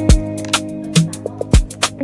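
Background music with a steady beat: drum hits about twice a second under held, plucked guitar-like notes.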